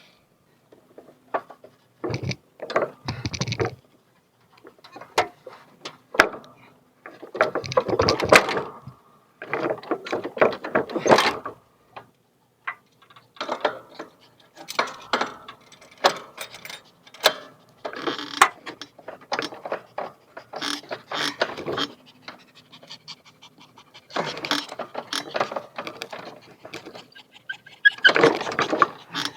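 Irregular clanks, knocks and scrapes of hand work on the metal linkage and deck of a lawn tractor as the mower deck is being removed, with sharp clicks between longer rustling scrapes.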